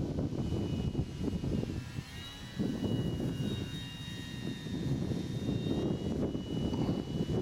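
Electric motor and propeller of a Multiplex Park Master 3D model aerobatic plane whining overhead, the pitch stepping up about two seconds in and shifting slightly with the throttle. Loud gusty wind buffets the microphone underneath.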